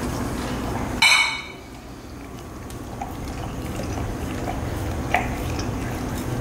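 Siberian husky licking and lapping at his bowl with wet slurping sounds after finishing his food, with a sharp ringing clink about a second in.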